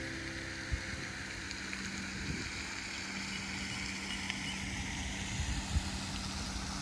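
Outdoor background sound: a steady low hum over an uneven low rumble, with a few faint clicks.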